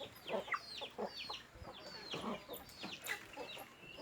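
Several birds calling over each other: many quick, high chirps that slide downward, mixed with lower, short clucking notes.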